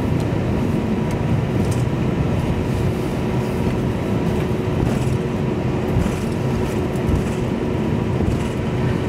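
Steady cabin rumble of a jet airliner taxiing after landing: the engines running at low power and the wheels rolling over the tarmac, with a faint steady tone through it.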